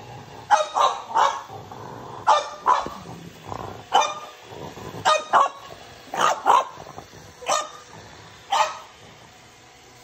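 French bulldog barking at a running Roomba robot vacuum: about a dozen short barks, often in quick pairs.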